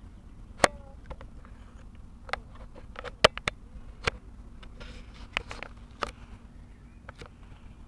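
Irregular sharp clicks and knocks from a handheld camera being moved and gripped, about a dozen of them, over the low steady hum of the boat's engine.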